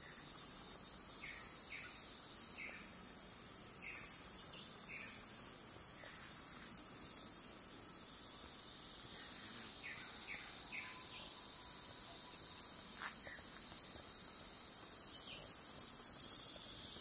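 Tropical forest ambience: a steady, high-pitched insect chorus, with a dozen or so short bird chirps scattered through it.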